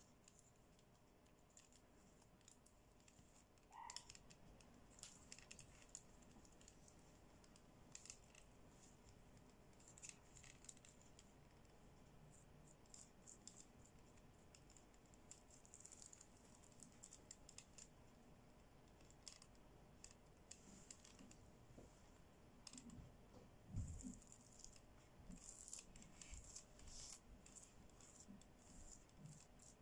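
Faint scattered clicks and soft scratchy rustles of fingers brushing the flip sequins on a doll's dress, with one dull thump late on.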